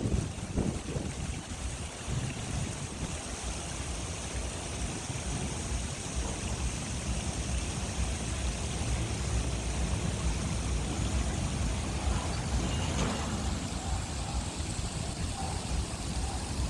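Fountain water splashing and rushing steadily.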